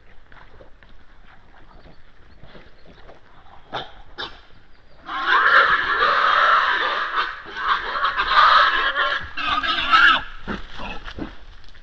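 Wild boars squealing and screaming in a fight. A loud burst of about five seconds starts about halfway in and breaks off, after faint scattered clicks and rustles.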